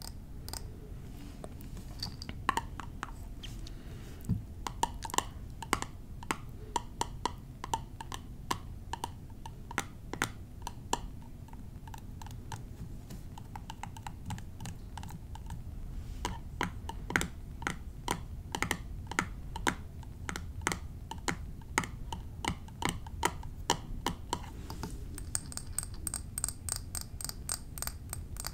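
Quick, irregular tapping on small mini-bar bottles, several taps a second, each tap ringing briefly at a pitch; the taps turn brighter and higher near the end.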